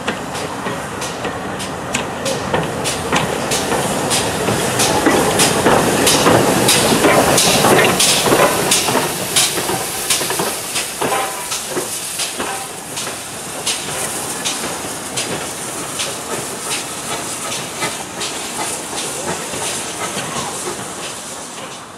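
GWR Collett 0-6-0 goods engine No. 3205 passing close by, steam hissing with a steady rhythm of sharp clicks. It grows louder to a peak about six to eight seconds in, then fades as it draws away.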